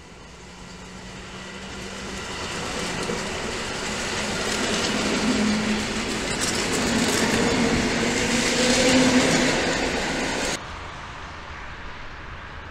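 Electric multiple-unit passenger train approaching and passing at speed: the wheel-and-rail noise grows steadily louder for about ten seconds, with a low steady hum under it. It cuts off suddenly near the end, leaving a quieter background.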